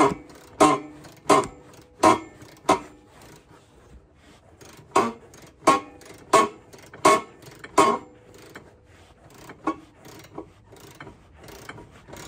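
Ratchet with a deep socket being worked on a stabilizer bar bolt: a regular run of sharp metallic clacks with a short ring, about one every 0.7 seconds. It pauses about three seconds in, resumes about five seconds in, and thins to fainter clicks after about eight seconds.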